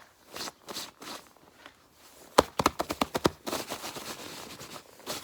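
Small pieces of pallet wood knocking together in a quick clatter about halfway in, followed by fast, steady rasping strokes of sandpaper rubbing on the wood.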